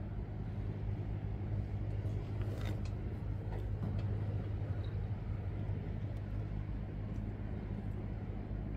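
A steady low engine hum, like a motor idling, with a few faint clicks about two to four seconds in.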